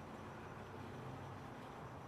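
Faint steady background hum and hiss: room tone, with no distinct handling or tool sounds.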